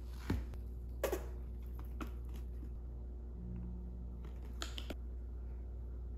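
A few light clicks and taps from wooden chopsticks and a ketchup squeeze bottle against a plastic cutting board, over a steady low hum. There is one tap about a second in, another near two seconds, and a quick pair of clicks near five seconds.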